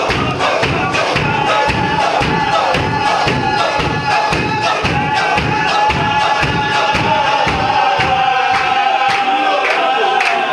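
Sufi zikr circle: many men chanting together with rhythmic stamping of bare feet, about two to three stamps a second, while one voice holds a long high sung note above the group. The stamping dies away near the end.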